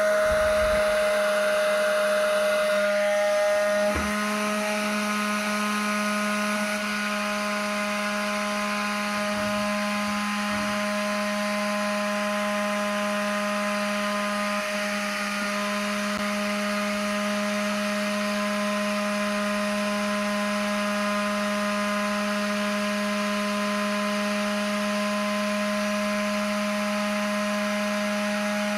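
Small electric motor spinning a disc fan inside a homemade plastic tube, running with a steady whine. It steps down slightly about four seconds in and then holds level.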